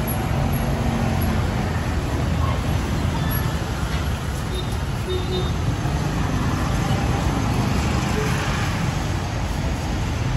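Steady roadside traffic noise from passing vehicles, with faint voices in the background.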